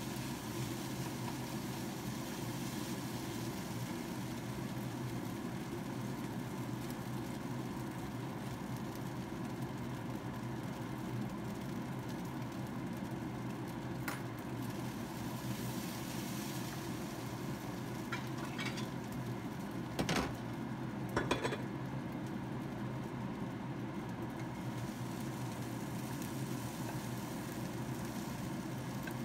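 A steady low hum, with a plastic spatula scraping and tapping against a non-stick frying pan while fried rice is stirred. A few sharp knocks come about two-thirds of the way through.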